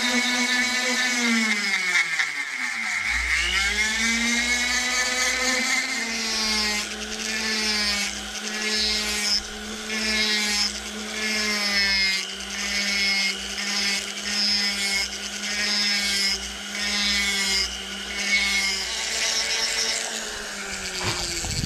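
Small handheld rotary tool whining as its bit carves and sands a wooden knife handle. Its pitch dips sharply and climbs back a few seconds in, then holds steady under a rasp of bit on wood that swells and fades about once a second. The motor stops just before the end.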